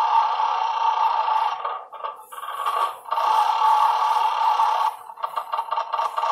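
Electronic sound effects from a roulette gaming machine's speaker: a steady buzzy tone that breaks off briefly about two seconds in, then a rapid run of electronic ticks near the end.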